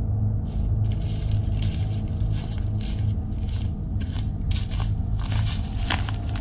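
Footsteps crunching through dry fallen leaves, an irregular crackling that grows louder as the walker comes closer.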